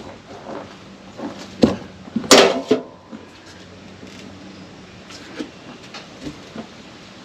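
Irregular knocks and clatters, the loudest cluster about two and a half seconds in, over a faint steady hum.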